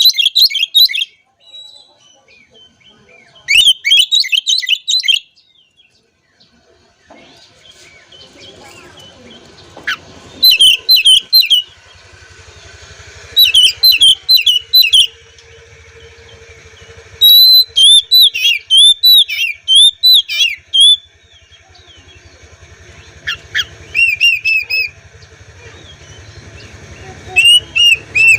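Oriental magpie-robin singing in short bursts of rapid, varied, high whistled phrases, about seven bursts with pauses of a second or two between them. A faint low hum sits under the song from about a quarter of the way in.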